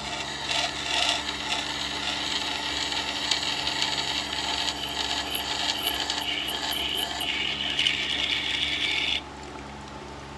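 Scissor blade held in a scissor jig grinding against the stone wheel of a WEN water-cooled wet sharpening system: a steady gritty scraping that stops suddenly about nine seconds in as the jig is lifted off. The grinder's motor hums steadily underneath.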